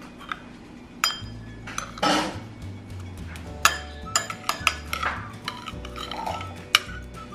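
A utensil clinking and tapping against a dish many times, with a short rustling noise about two seconds in, over background music with a steady bass line.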